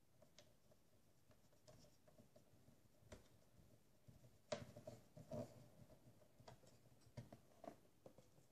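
Faint clicks and short scrapes of small screws being driven by hand into a laptop with a small screwdriver, the busiest stretch a little past the middle.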